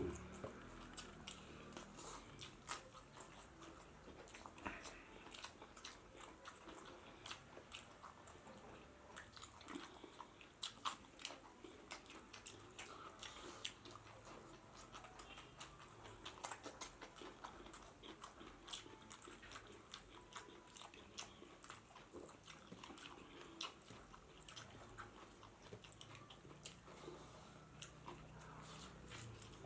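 Close-up chewing and mouth sounds of a person eating pork biryani and rice: many small, irregular wet clicks and smacks while chewing.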